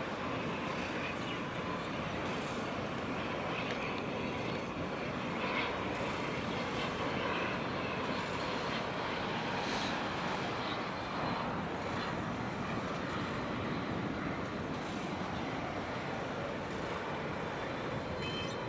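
Steady, even drone of a passing container ship and the harbour tug working alongside it, with a faint constant hum in it.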